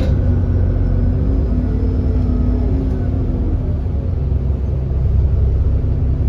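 Diesel engine of an Alexander Dennis Enviro400 double-decker bus, a 6.7-litre Cummins ISB, running as the bus drives: a steady low drone whose engine tones drift slightly in pitch. The bus has an exhaust leak.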